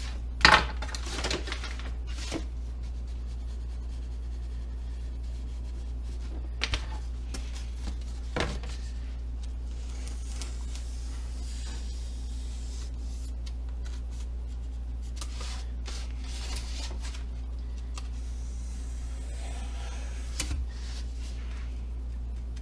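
Handling noise of a workbench build: scattered clicks, knocks and rustles of parts and tools being picked up and set down, over a steady low hum. The loudest knock comes about half a second in.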